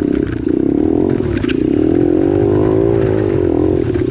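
An off-road vehicle's engine running under load on a trail. Its pitch rises and falls as the throttle changes, and there is a brief rattle about a second and a half in.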